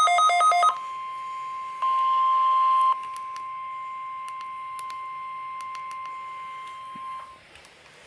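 NOAA Weather Radio 1050 Hz warning alarm tone, sent as a weekly test, sounding as one steady tone and cutting off about seven seconds in. A rapid pulsing two-note beep overlaps it for the first split second, a short rush of static comes in about two seconds in, and faint clicks run throughout.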